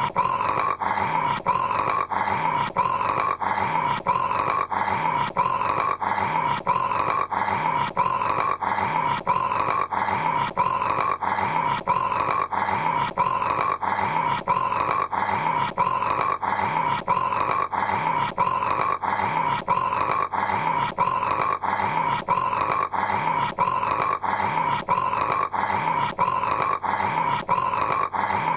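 A man snoring, as a continuous rasping drone. It repeats the same short pattern with a faint click about twice a second, like a brief snore clip looped over and over rather than natural breaths.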